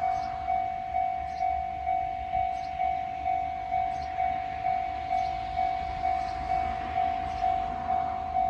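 Japanese railway level-crossing warning bell ringing, one steady electronic clang repeated evenly about twice a second, the signal that a train is approaching the crossing.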